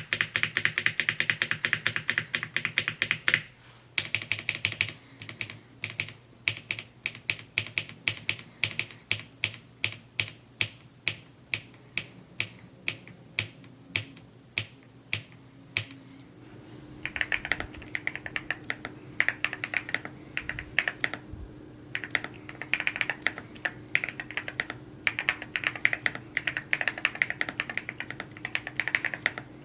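Typing on an Evo80 custom mechanical keyboard, a fast, uneven run of keystroke clacks. The sound of the keystrokes changes about three seconds in and again about halfway through, as the test moves between keycap, switch and plate setups.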